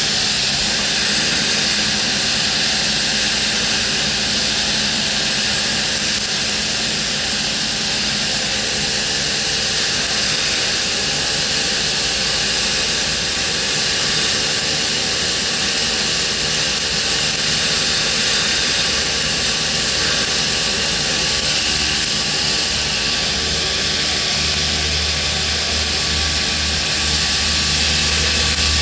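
Gas-shielded .045 flux-cored wire welding arc (about 25 volts, 317 wire feed speed) burning continuously as a vertical-up 3G bead is run, a steady, even hiss. A low hum joins near the end.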